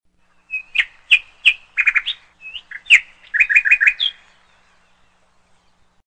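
Yellow-billed blue magpie calling: a series of short, sharp calls, including two quick runs of four or five notes, stopping just after four seconds in.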